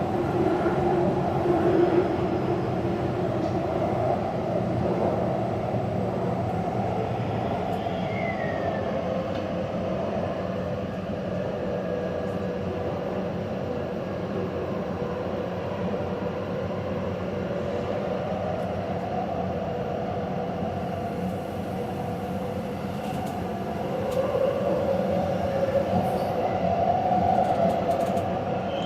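Taipei Metro train of the Zhonghe-Xinlu line running between stations: steady wheel-on-rail rumble with a wavering motor hum, a brief wheel squeal about eight seconds in, and the sound growing louder near the end.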